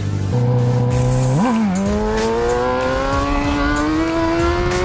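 Motorcycle engine pulling away from a stop. It rises in revs early on, blips up quickly about a second and a half in, then climbs steadily in pitch as the bike accelerates in gear. It is heard through a helmet-mounted microphone.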